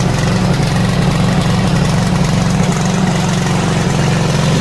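Gasoline engine of a Vigorun VTC550-90 remote-control mower, started from the control-panel button, running steadily at an even, fast beat.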